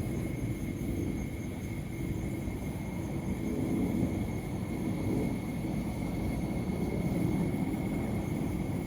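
Steady low outdoor rumble with a faint, steady high-pitched tone over it.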